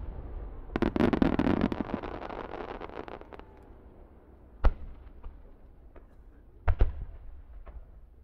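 Star mine fireworks: a rapid cluster of shell bursts bangs about a second in and echoes away over the next couple of seconds. It is followed by a single sharp bang about halfway through and two more close together near the end.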